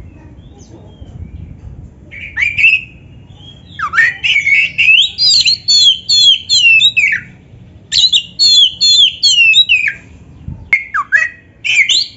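Oriental magpie-robin (kacer) singing a loud, varied whistled song. After a short phrase it gives two long runs of quick repeated notes that sweep up and down, then a few short notes near the end.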